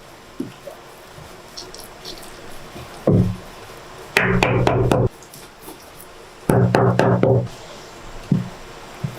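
Bursts of rapid knocking: a short burst about three seconds in, then two longer runs of close-spaced knocks, each lasting about a second.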